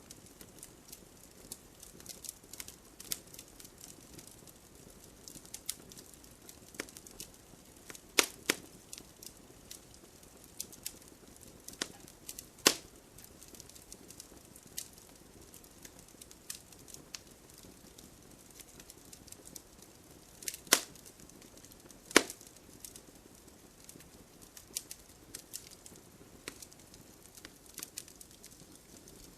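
Wood campfire with burning logs crackling: a steady low hiss of flames under frequent small snaps, with a few louder pops about 8, 12, 20 and 22 seconds in.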